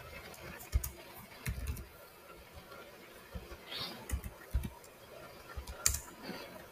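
Computer keyboard being typed on: scattered key clicks in a few short, irregular bursts, fairly quiet.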